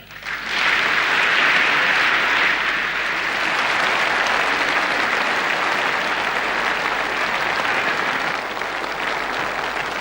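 Studio audience applauding steadily, starting about half a second in and easing slightly near the end.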